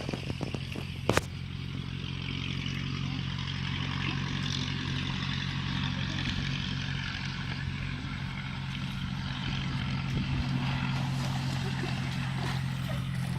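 Small boat engine running at a steady speed, with a hiss of water over it. One sharp knock about a second in.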